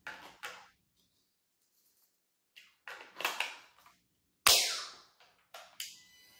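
Plastic clicks and knocks as a DeWalt 20V battery pack is handled and slid onto a DeWalt DCE530 cordless heat gun, ending in one sharp snap about four and a half seconds in as the battery latches. Two lighter clicks follow soon after.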